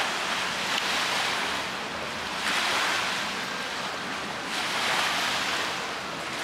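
Small lake waves washing onto the shore, each wash swelling and falling away over about two seconds.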